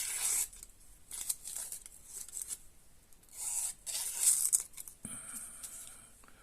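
A small fixed knife with a 440C steel blade cutting through material, a series of short hissy scraping strokes at an uneven pace.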